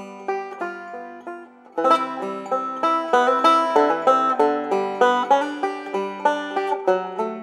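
Background music: a quick tune of plucked-string notes, getting louder about two seconds in.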